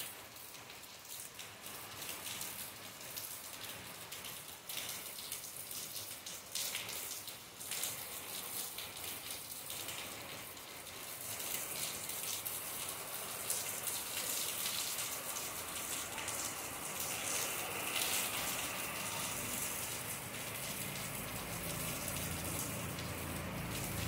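Rain falling steadily on palm fronds and paving, with many separate drop hits. About halfway through it grows a little louder and more hissing, and a low rumble comes in near the end.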